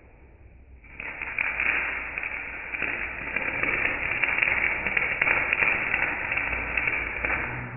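Electric arc welding on a steel gate frame: the arc crackles and sizzles densely and steadily. It starts about a second in and stops just before the end.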